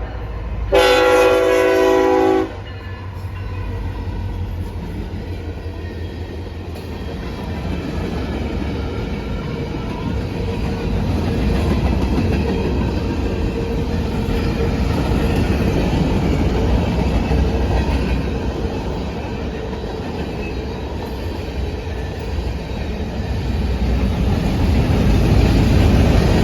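CSX freight locomotive's air horn sounds one blast about a second in, then the fast manifest freight train runs past continuously, its noise building louder near the end.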